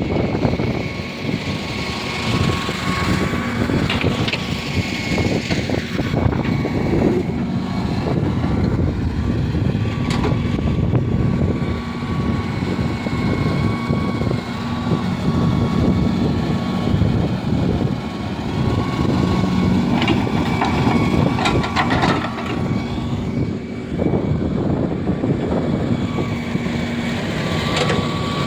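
Excavator's diesel engine running steadily under load, with a steady whine over the rumble and a few knocks.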